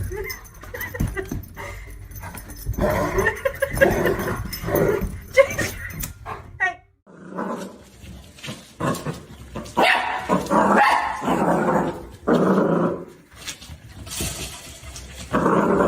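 A dog barking and growling in repeated calls, with a short break about seven seconds in.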